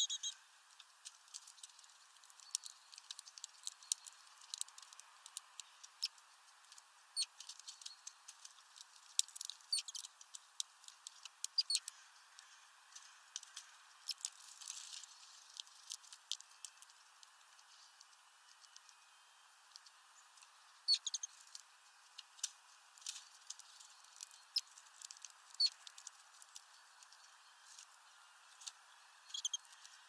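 Great tits pecking at peanuts through a mesh feeder bag: irregular quick taps and clicks, with a few short high chirps scattered among them.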